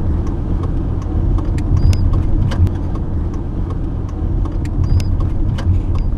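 Road and engine noise inside a moving vehicle's cabin: a steady low rumble, with scattered light clicks and rattles.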